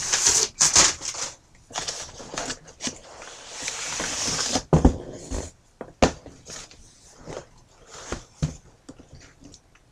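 Tissue paper rustling and crinkling as it is pulled out of a cardboard box, with a few sharp knocks from handling the packaging.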